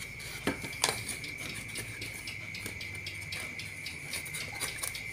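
Small plywood miniature truck cab parts knocking and clicking lightly as they are handled and fitted together, with two sharper taps in the first second. A steady high-pitched tone runs underneath.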